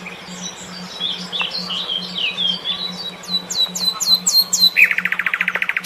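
Songbird singing a varied phrase: quick chirps, then a run of high whistles that sweep sharply downward, then a fast buzzy trill near the end. Under it runs a low hum that pulses about three times a second.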